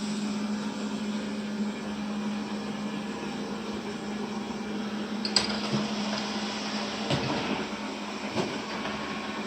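Household vacuum cleaner running steadily with a constant hum, with a few short knocks from about halfway through.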